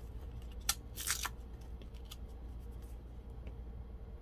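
A plastic glitter jar being opened by hand: a sharp click about two-thirds of a second in, then a brief rustle of its paper wrapping being torn away, followed by a few faint small handling ticks.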